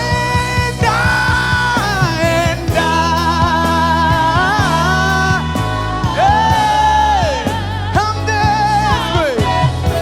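Live gospel praise-and-worship music: a solo singer's wordless runs, sliding and wavering with vibrato, over a band with sustained bass and a steady drum beat.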